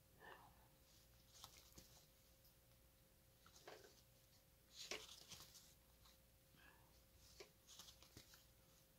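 Near silence: faint, scattered rustles and soft ticks of a needle and embroidery floss being drawn through cross-stitch fabric, the plainest about five seconds in, over a faint steady hum.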